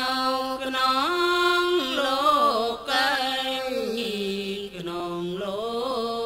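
A single voice chanting a Thai Buddhist dhamma verse in a slow, melodic style, holding long notes and sliding smoothly between pitches.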